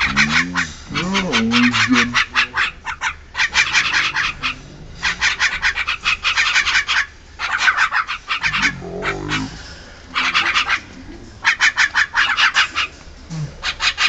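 Javan mynas chattering: harsh, rapid bursts of dry, raspy notes in repeated bouts of a second or two, with short pauses between.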